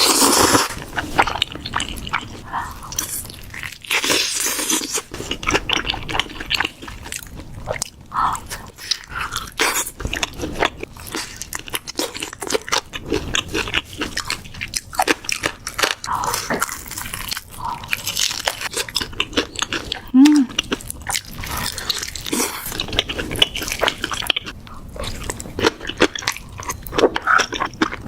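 Close-miked eating of crispy fried chicken: many crisp crunching bites and chewing in quick, uneven succession.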